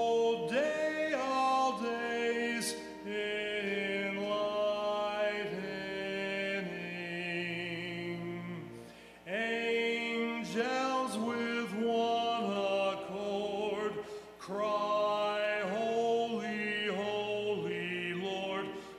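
A man singing a slow hymn in long held notes, phrase by phrase, with short breaks about nine seconds in and again near fourteen seconds.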